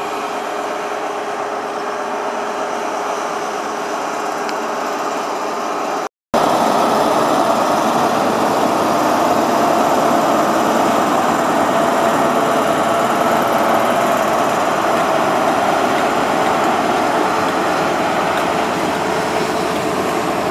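Diesel engine of a class 43 InterCity 125 power car running steadily. A brief break about six seconds in is followed by a louder stretch.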